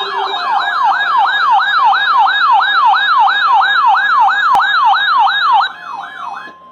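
Electronic siren-style alert tone opening an Emergency Alert System broadcast, sweeping rapidly up and down at nearly three sweeps a second. It drops sharply in level near the end and gives way to a brief steady tone.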